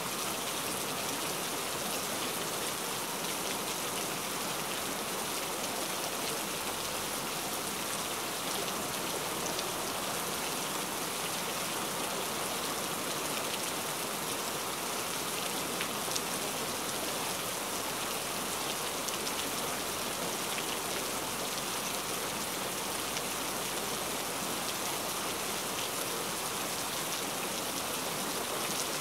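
Steady rain: an even hiss with a light patter of drops.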